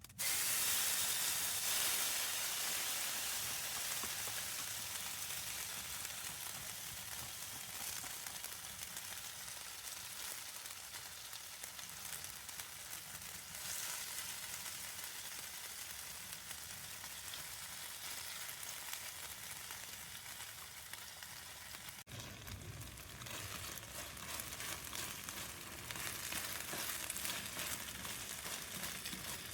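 A steady sizzling, crackling hiss that starts suddenly, is loudest at first and eases off slowly, then cuts to a similar sizzle about three-quarters of the way through.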